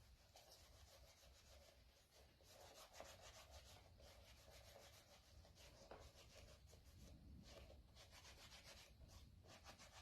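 Faint rubbing of a leather pouch in quick repeated strokes: black polishing compound being buffed into dyed vegetable-tanned leather.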